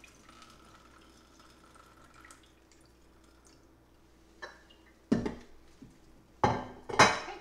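Water poured from a container into glass mason jars in three short splashes, starting about five seconds in.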